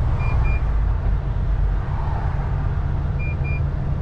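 Steady low rumble of a lorry's engine and road noise heard inside its cab, with a short, high electronic double beep twice: near the start and again about three seconds in.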